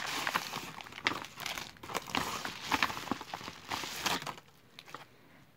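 Paper padded mailer being handled and opened by hand: crinkling and rustling paper with scattered crackles, fading to a faint rustle about four seconds in.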